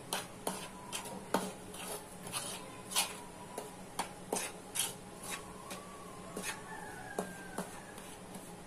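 A spoon stirring and scraping a dry flour mix in a plastic bowl, with light, irregular taps of the spoon against the bowl, two or three a second.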